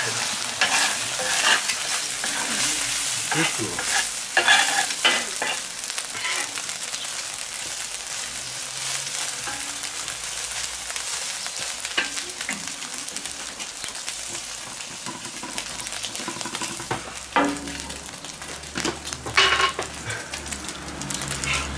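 Scrambled egg sizzling on a hot steel fire plate, with a metal spatula scraping and pushing it across the plate in strokes now and then, most strongly near the start and near the end.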